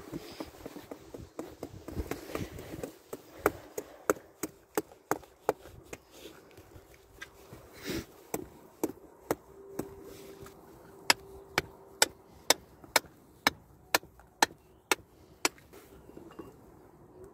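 A hammer striking shale in steady sharp taps, about two a second, louder in the second half, chipping rock away from an ammonite fossil.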